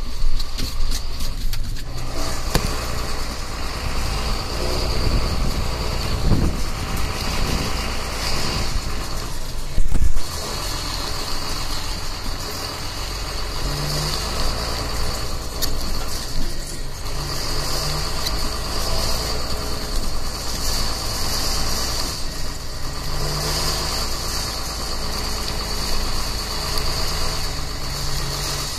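John Deere 6620 tractor's diesel engine running steadily under load from inside the cab, a low drone with a steady high whine over it. A single loud knock comes about ten seconds in.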